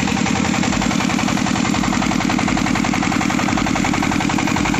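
Horizontal single-cylinder diesel engine running steadily with a rapid, even chugging, driving a generator head to make power.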